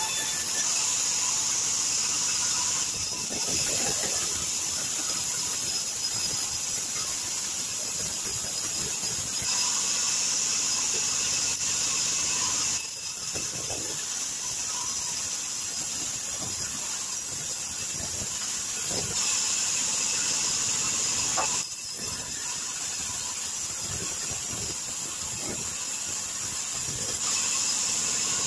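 Band sawmill running, its blade sawing a log lengthways into boards: a steady high-pitched hiss and whine that swells in stretches and drops suddenly twice.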